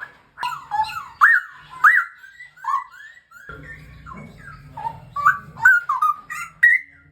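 Straw-headed bulbul (cucak rawa) singing: a run of loud, rich whistled phrases made of quick rising and falling notes, with brief pauses between them.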